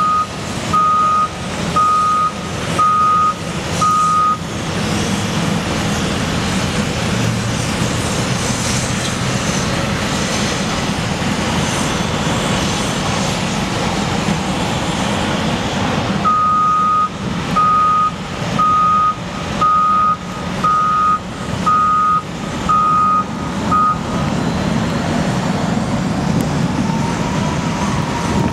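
Caterpillar wheel loaders' diesel engines running with a steady low rumble, while a reversing alarm beeps about once a second, five beeps at the start and about eight more in the middle.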